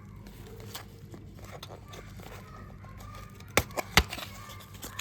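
Three sharp clicks in quick succession about three and a half seconds in, over a low hum with faint short chirping calls.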